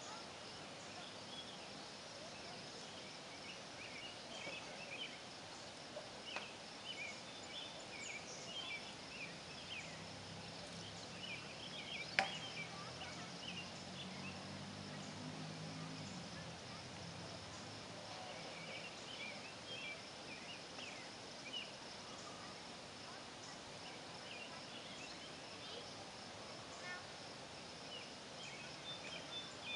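Evening lakeside wildlife chorus: many short, scattered chirps over a steady high insect buzz. A low hum swells and fades in the middle, and a single sharp click comes near the middle.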